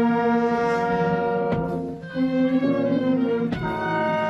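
Slow, solemn orchestral music with long held chords that change every second or two.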